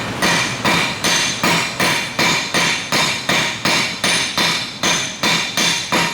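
Hammer blows on hot steel over an anvil in a steady rhythm of about two and a half strikes a second, each blow ringing briefly: square stock being drawn out to a taper.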